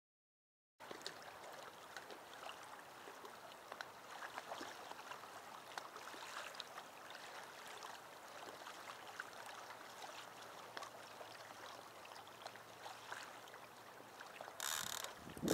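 Faint small waves lapping at the shore, a steady patter of tiny splashes and ticks, starting about a second in. A louder rush of noise comes in near the end.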